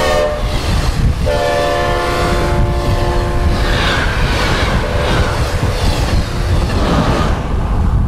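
Synthesized recreation of a K5L five-chime locomotive air horn passing by. A chord falling in pitch cuts off just at the start, a second steady blast sounds about a second in and lasts roughly two seconds, and a faint chord follows later, all over a continuous rumble and rush of a passing train.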